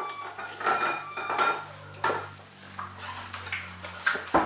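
Small white draw lots clattering and clinking against a glass bowl as a hand rummages through them, several short clicks over a faint steady hum.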